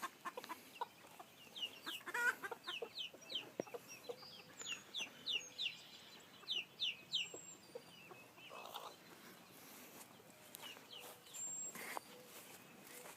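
Chickens clucking softly, with many short, high, falling peeps scattered throughout.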